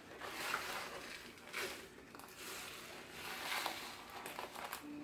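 Rustling and crinkling of plastic wrapping and a stiff canvas in irregular bursts as a rolled diamond painting canvas is unwrapped and unrolled.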